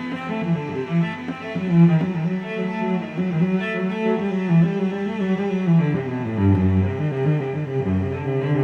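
Background music played over sped-up footage: low bowed strings, cello and double bass, in a slow melodic line.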